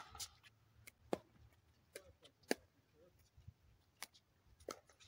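Pickleball paddles hitting a hard plastic pickleball, with the ball bouncing on the court, during a rally: a string of sharp, irregular pops, the loudest about a second and two and a half seconds in.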